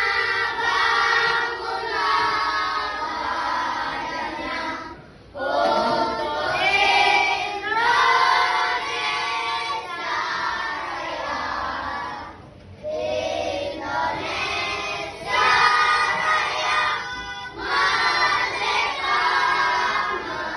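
A group of children singing a song together, in phrases separated by brief pauses.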